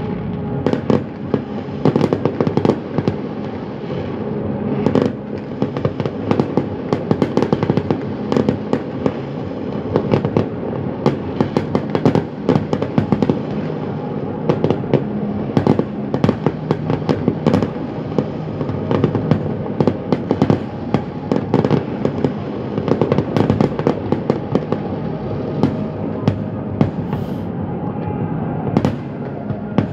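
Fireworks display going off without pause: a dense stream of sharp bangs and crackles, several a second, over a constant haze of noise.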